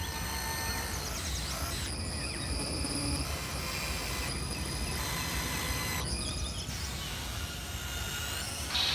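A steady low rumble, with high chirping and whistling tones coming and going over it about once a second.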